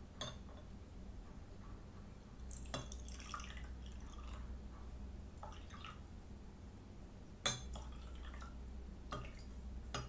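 Coloured water being poured from glass tumblers into a clear glass, trickling and dripping, with several sharp clinks of glass against glass and the table, the loudest about halfway through.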